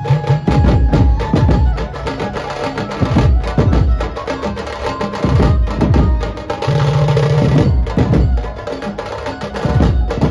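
Dhumal band drums, large double-headed bass drums and stick-beaten side drums, playing a loud, fast rhythm that comes in abruptly at the start, over a steady melody line.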